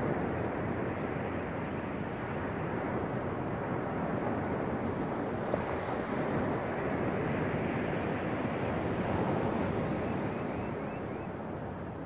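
Small ocean waves breaking and washing up on a sandy beach: a steady surf wash that swells and eases gently.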